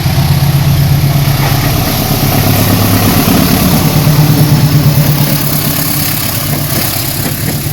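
GE diesel-electric locomotive engine running hard as the train accelerates away: a loud, steady low drone that swells slightly in the middle.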